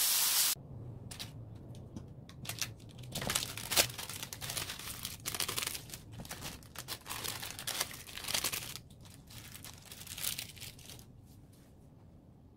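Beef sizzling on a hot grill pan cuts off under a second in. Then plastic ramen seasoning packets crinkle and tear open in irregular bursts of rustling, which die away near the end.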